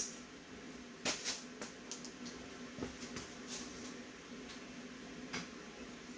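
Quiet workshop room tone with a faint steady hum, broken by a few light clicks and knocks, about one a second early on and a sharper one near the end.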